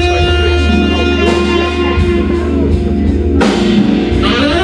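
Live jazz ballad: tenor saxophone holding long notes over sustained organ chords and bass, with drums. A cymbal crash comes about three and a half seconds in, and near the end the saxophone slides up into a new held note.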